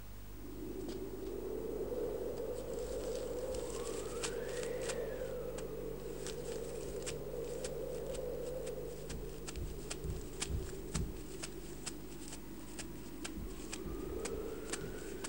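Wind blowing in a steady rush, with a whistling gust that rises and falls about four seconds in and another rising near the end; scattered crackling clicks over it.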